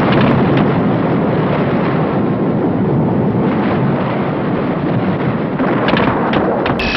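A loud, steady rushing rumble of noise, with a few short crackles near the end.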